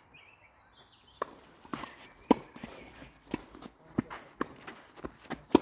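Tennis ball being struck by rackets and bouncing on a clay court in a rally: a string of sharp pops, irregularly spaced, loudest about two seconds in and again at the very end.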